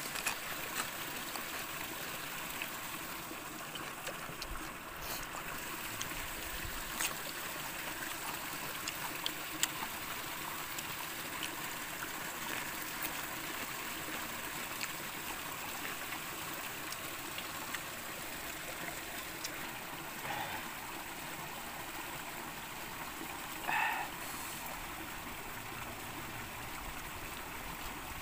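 A shallow stream running over rocks, a steady rush, with a few faint clicks and one short louder sound a few seconds before the end.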